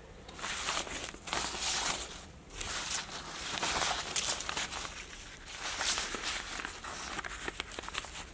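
Weathered old newspaper rustling and crinkling as its pages are unfolded and turned by hand. The sound comes in irregular bursts of about a second each, with small crackles between them.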